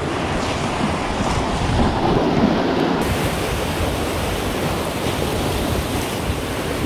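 Sea surf breaking and washing over the rocks of a rocky shore: a steady rushing noise that swells a little a couple of seconds in.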